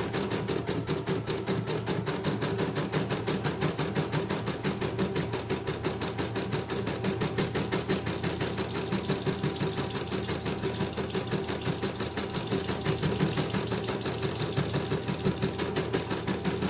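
CNY E900 computerized embroidery machine stitching a design: the needle mechanism runs in a fast, even rhythm over a steady motor hum. This is a test run after repair, with the machine freshly oiled and stitching smoothly without skipped stitches.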